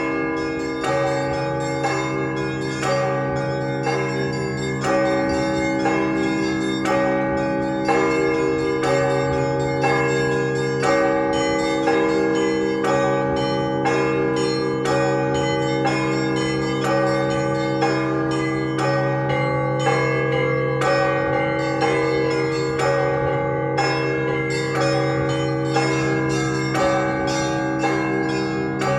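Festive Russian Orthodox ringing on a 48-bell belfry. Small bells chime rapidly over the steady hum of large bells, with heavier strikes roughly every second or two.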